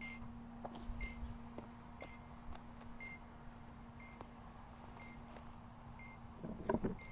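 A steady low electronic hum with a short high beep about once a second, and a brief warbling sound near the end.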